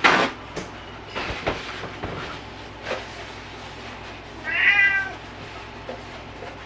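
Domestic cat giving one drawn-out meow a little past the middle, a talkative cat calling for attention, which the owner takes for begging for treats. A sharp knock at the very start and a few lighter knocks before it.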